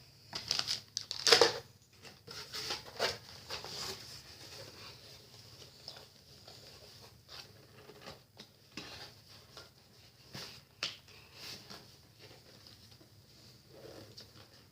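Plastic lure packets and a cardboard subscription box rustling and crinkling as they are packed back in, with scattered clicks and taps. The handling is busiest in the first few seconds, then thins to occasional light taps.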